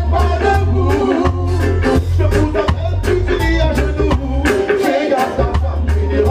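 Live reggae band playing: a drum kit keeping a steady beat under a heavy bass line and electric guitar, with a voice singing over it.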